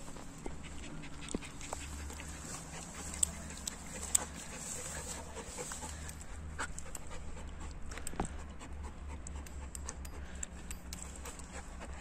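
German Shepherd panting close up, mouth open and tongue out, with a few sharp clicks of handling.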